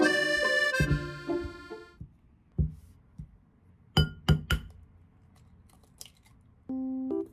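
Background music that fades out about two seconds in, then an egg tapped three times in quick succession against the rim of a ceramic plate, sharp clinking knocks, and a few faint clicks as the shell is broken open. New piano music starts near the end.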